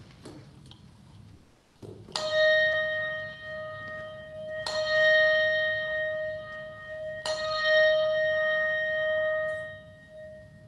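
A brass handbell struck three times, about two and a half seconds apart, after a few small handling clicks. Each stroke gives a clear ringing tone that hangs on into the next, and the ring dies away near the end.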